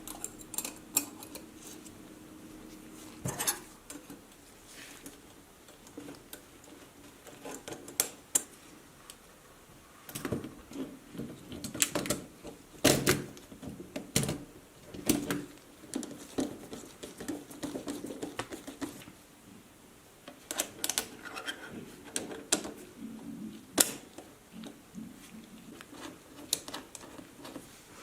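Irregular clicks, knocks and light clatter of small mechanical parts being handled and worked on an antique calculator under repair.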